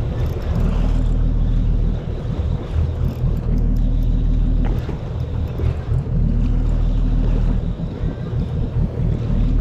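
A fishing boat's engine running steadily, its low hum swelling and easing every couple of seconds.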